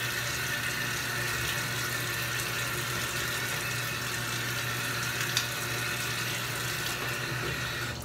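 Bathroom sink tap running steadily into the basin: an even, unbroken rush of water.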